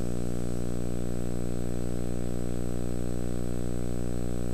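A steady electrical hum with many evenly spaced overtones and an even, unchanging level.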